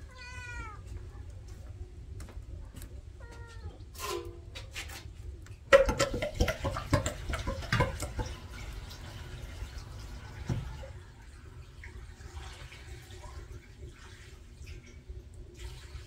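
A cat meows three times, short calls falling in pitch. About six seconds in comes a loud burst of clattering and rustling that dies away into quieter handling noise.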